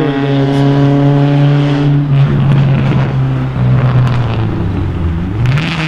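A car passing close by on a canyon road: a steady engine note for the first couple of seconds, turning rougher as it goes by, then rising in pitch near the end as it accelerates away.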